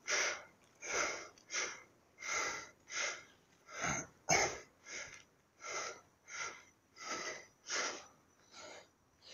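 A man breathing hard close to the microphone while climbing steep steps, even breaths in and out at about three every two seconds.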